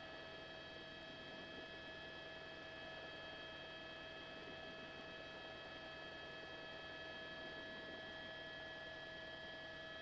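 Faint, steady electrical hum and whine: several constant tones over a low hiss, unchanging throughout.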